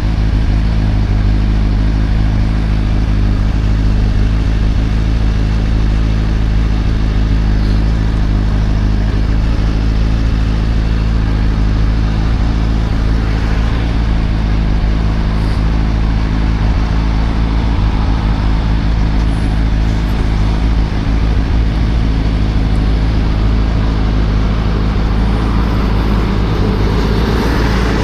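Suzuki GSR 600's inline-four engine running at steady revs while riding, with wind rush on the microphone. A rushing noise swells near the end.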